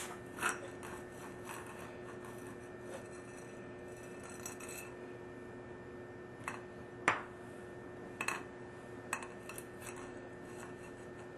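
A few scattered light metallic clinks and knocks as copper pipe and tools are handled, the sharpest about seven seconds in, over a steady low hum.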